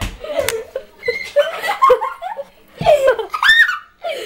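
A person laughing and giggling in several short bursts, one rising high about three and a half seconds in.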